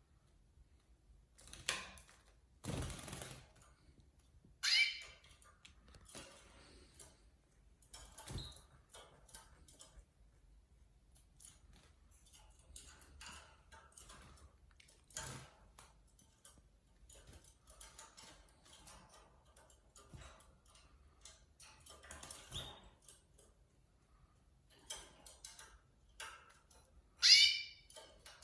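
Canaries bathing: scattered light splashes and wing flutters in water, with two short, loud canary chirps, one about five seconds in and one near the end.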